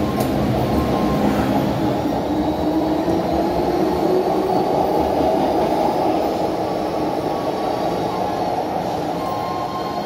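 MTR Disneyland Resort Line M-train running past at close range and pulling away: steady wheel-on-rail noise and motor hum, with a faint whine rising in pitch over the first few seconds, fading somewhat over the last few seconds as the train moves off.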